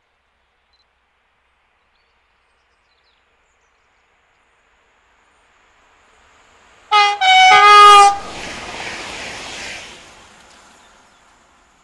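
A passing electric train sounds its horn in three quick blasts that alternate high and low in pitch. The rush of the train going past follows and fades away.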